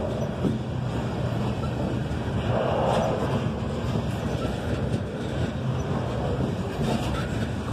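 Loaded coal hopper cars rolling past close by: a steady rumble of steel wheels on the rails, with a few short clacks.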